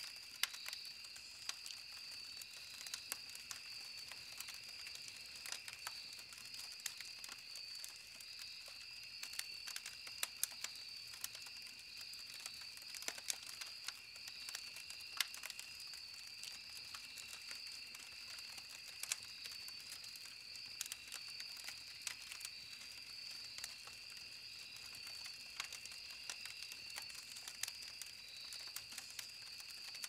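Wood campfire crackling, with frequent sharp pops scattered irregularly throughout, over a steady high-pitched background tone.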